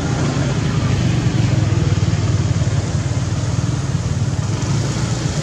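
An engine running steadily nearby, a continuous low rumble with no change in pitch.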